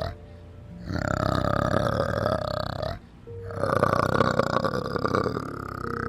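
An animal giving two long, rasping calls, the second starting about three and a half seconds in.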